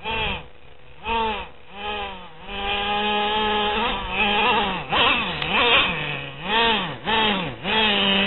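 Traxxas Revo 2.5 nitro RC truck's small two-stroke glow engine revving in repeated throttle bursts, its pitch rising and falling, with short drops back towards idle between blips. About two and a half seconds in it holds a longer steady run before the blips resume.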